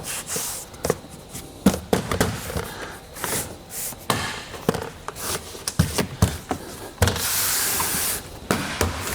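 Clicks and knocks of objects being handled, with a steady hiss lasting a little over a second near the end.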